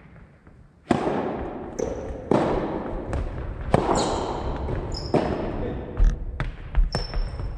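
Soft tennis rally with the rubber ball struck by rackets and bouncing on a wooden gym floor: a loud sharp hit about a second in, then more hits and bounces every second or so, echoing in the hall. Short high squeaks of shoes on the floor come between the hits.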